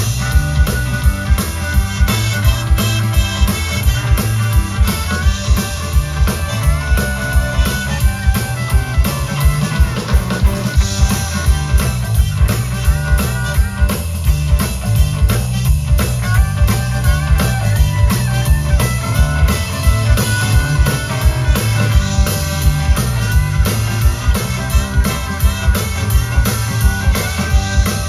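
Rock music with drums, bass and electric guitar playing a steady beat.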